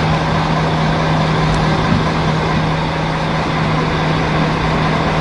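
Team coach's engine idling: a steady low hum under an even rumbling noise.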